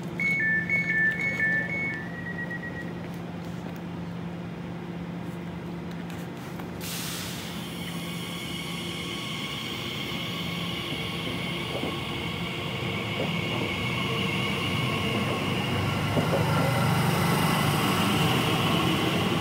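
Elizabeth line Class 345 electric train departing: two-tone door-closing beeps over a steady hum, then a sudden hiss of air about seven seconds in as the brakes release, followed by the traction motors' electronic whine, which grows louder as the train pulls away.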